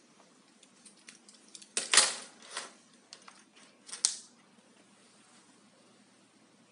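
Clicks, knocks and small rattles of a USB flash drive and adapter being handled and plugged into a laptop's port, the loudest about two seconds in and again near four seconds.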